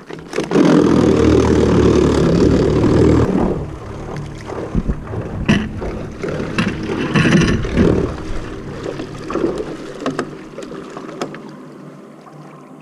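A small fishing boat being worked free of shallow, weedy water. A steady, loud running noise fills the first three seconds, then scattered knocks and light water noise fade toward the end.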